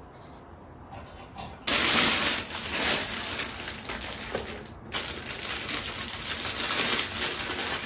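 Thin clear plastic packaging crinkling and rustling as metal coat hooks and brackets are pulled out of their bags. The sound starts suddenly about two seconds in and has a brief pause a little past the middle.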